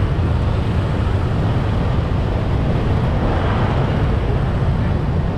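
Busy city street traffic, mostly motorbikes, heard on the move: a steady, dense noise with a strong low rumble.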